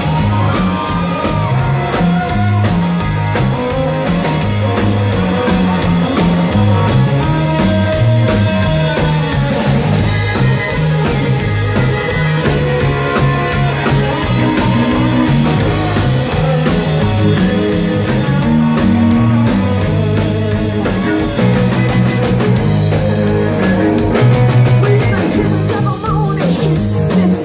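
Live rock band playing: drum kit, guitars and fiddle, with a woman singing lead in parts.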